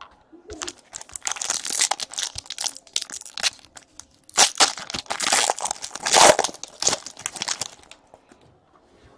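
Crinkly wrapper of a trading-card pack being torn open and crumpled by hand, in two long stretches of crackling with a short pause about four seconds in.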